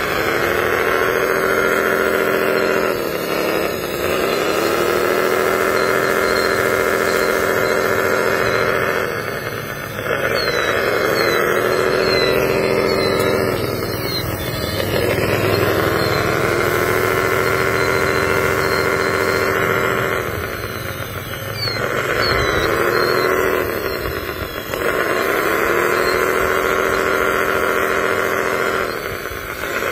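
Electric drive motors and gearboxes of a radio-controlled toy wheel loader whining in runs of several seconds, each rising quickly in pitch as it starts and then holding steady, over and over as the loader drives and works its bucket.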